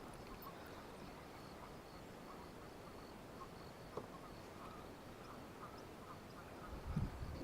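Faint scattered bird calls, duck-like, with a low thump near the end.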